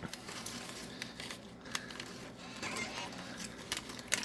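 Paper money crinkling and rustling as bills are pulled from a pocket and handled, with a few sharp clicks scattered through.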